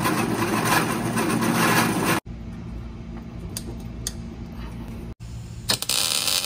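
A drill press running and boring into a steel plate, cut off abruptly after about two seconds; then a quieter steady hum with a couple of light clicks as a tap wrench is turned in a part held in a vise; then near the end an angle grinder cutting square steel tubing, a bright hissing grind.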